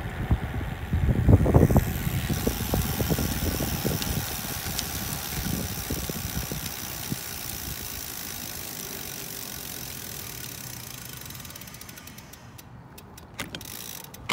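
Riding noise from a Catrike 700 recumbent trike. Wind buffets the microphone for the first two seconds, then a steady rolling hiss fades away over about ten seconds, with a few sharp clicks near the end.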